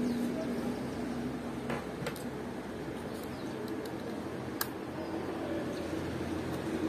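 A few faint clicks from a small screwdriver and wire against the plastic spring terminals of a temperature controller's terminal block, over a steady background hum.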